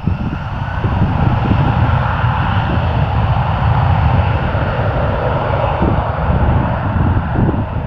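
Airbus A321-231 jet airliner's twin IAE V2500 turbofan engines running steadily as it taxis and turns on the runway. It is a continuous jet rush over a low rumble.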